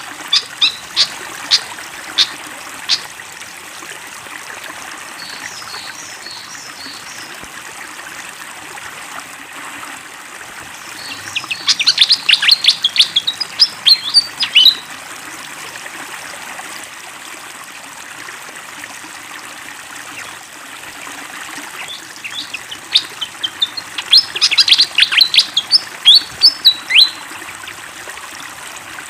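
A fantail (sikatan kipas) singing: a few sharp, separate chirps at the start, then two long bouts of rapid, high chirping notes, one a little before the middle and one later on. Under it runs a steady hiss of flowing water.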